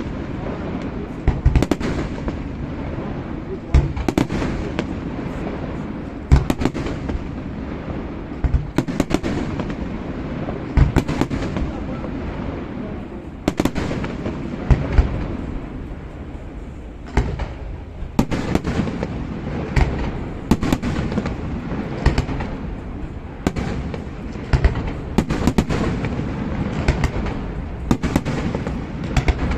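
Fireworks display: many bangs and crackles going off in irregular rapid clusters, with voices of onlookers murmuring underneath.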